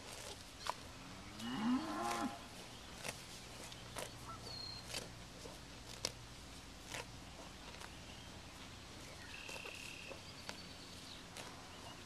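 A beef cow gives one short, low moo about a second and a half in. Sharp snaps of grass being torn off recur throughout as a Red Angus cross cow grazes.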